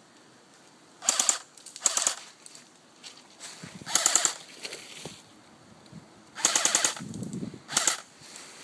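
Aftermath AK-47 airsoft electric gun (AEG) firing five short full-auto bursts, each a rapid rattle under a second long.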